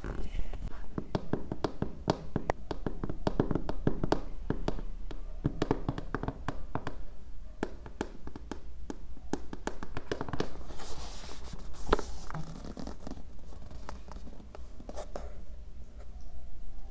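Fingernails tapping and scratching on a cardboard product box as it is turned over in the hands, a dense run of light clicks, with a brief brushing rub of skin or nails across the card about ten seconds in.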